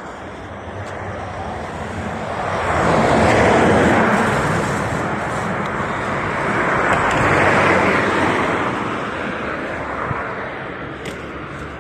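Road traffic: two vehicles pass one after the other, their tyre and engine noise swelling and fading, loudest about three and a half and seven and a half seconds in.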